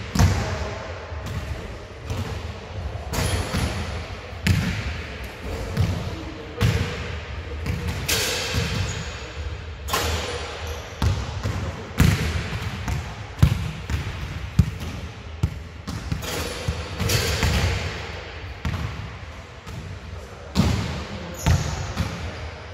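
Basketballs bouncing on an indoor court floor: irregular thuds, sometimes several in quick succession, throughout.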